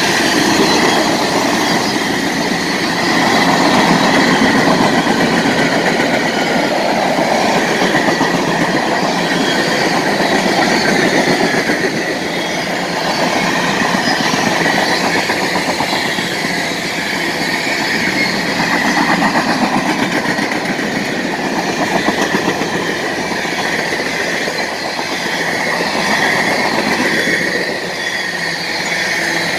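Freight train of hopper, box and tank cars rolling past at close range: continuous wheel-on-rail rumble and clickety-clack that swells and eases every few seconds, with a steady high-pitched whine over it.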